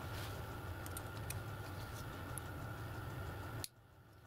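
Faint light metallic clicks and ticks as a small tool works on a steel piston-ring jig clamped in a vise, over a steady low hum with a thin high tone. The hum cuts off abruptly with a click near the end.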